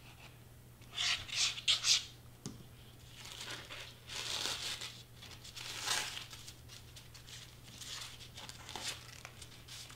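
Crepe paper crinkling and rustling as strips are handled, folded and pressed down, in short bursts: a sharp pair about a second in, a longer rustle around four seconds, then smaller ones.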